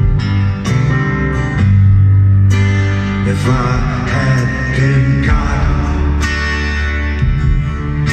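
Live rock band music: acoustic guitar strumming chords over a sustained low bass, with a wavering melodic line in the middle.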